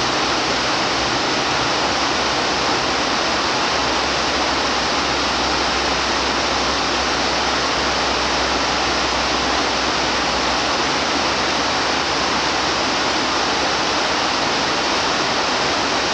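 Waterfall: a sheet of water pouring over a dam's spillway onto rocks below, an even, unbroken rush of falling water.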